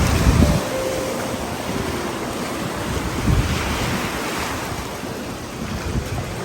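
Surf washing onto a sandy beach as a steady rush, with wind buffeting the microphone in low gusts at the start and again about three seconds in.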